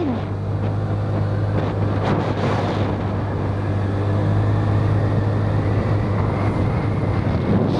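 Motorcycle engine running at a steady speed while riding, with a rushing haze of wind and road noise over it.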